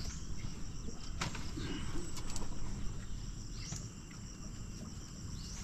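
Steady high-pitched insect chirring, as of crickets, with a few short rising chirps. A few sharp wooden knocks come about a second and two seconds in as a bamboo lattice panel is handled.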